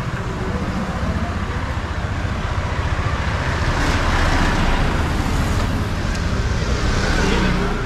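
Road traffic: engines running steadily with vehicles passing close by, the noise swelling about halfway through and again near the end.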